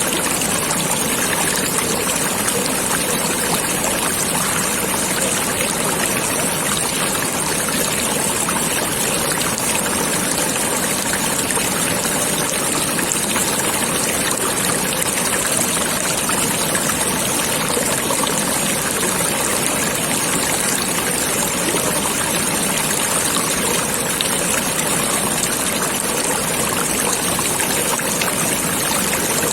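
Water of a stream flowing steadily.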